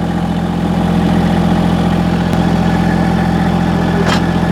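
Massey Ferguson GC1725 sub-compact tractor's three-cylinder diesel engine idling steadily, with a brief click near the end.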